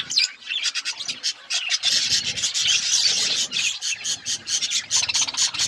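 Budgies chattering: a dense, scratchy run of rapid high chirps.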